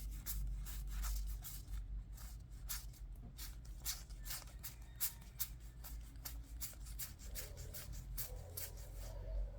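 Yu-Gi-Oh! trading cards being flicked through by hand: a quick, irregular run of soft slides and clicks as card rubs against card.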